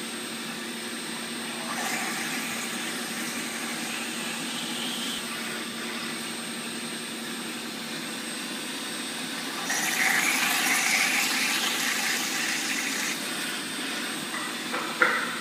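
CNC machining centre drilling ejector-pin holes in a mould: a steady machine hum with a thin high whine, becoming louder and rougher from about ten seconds in until about thirteen.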